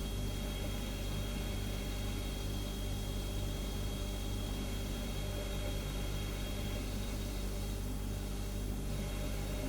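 Refrigerator humming steadily: a low compressor drone with a faint hiss over it. A faint high whine in it stops about seven seconds in.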